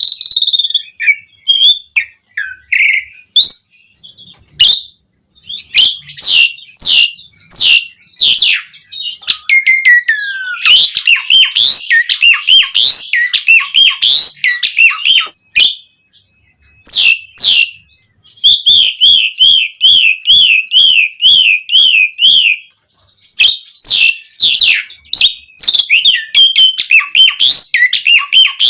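Javan pied starling (jalak uren) song played as a training recording: loud, varied whistles, squeaky rising and falling notes and chatter. About two-thirds through comes a quick wavering trill lasting a few seconds, and the singing breaks off briefly twice.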